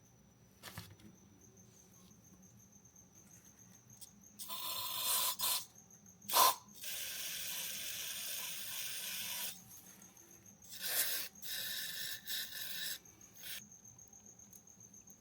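Several bursts of spray hissing into gummed-up carburettor jets and passages to clear old varnished fuel; the longest is steady for about two and a half seconds. There is a sharp click between the first two bursts.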